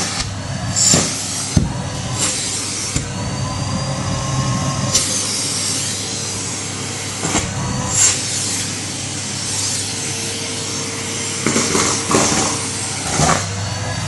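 A Henry vacuum cleaner running steadily, its nozzle sucking up crumbs, with a few brief louder bursts over the even motor hum and hiss.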